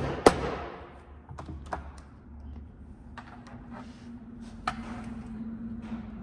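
One sharp hammer strike just after the start, then scattered light metal clicks and taps as a dial indicator on a magnetic base is set against the transmission mainshaft to measure its end play. A faint steady hum comes in about halfway through.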